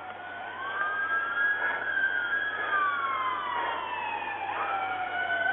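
Several police car sirens wailing at once, their pitches slowly rising and falling out of step, growing louder as the responding units approach.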